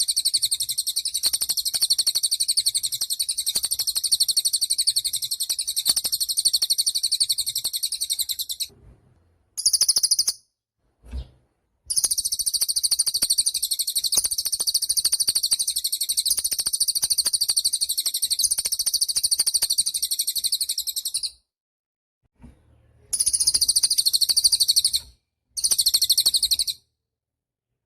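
Cililin bird singing a fast, high twittering trill in long unbroken runs. The song breaks off briefly near the middle and ends in a few shorter bursts.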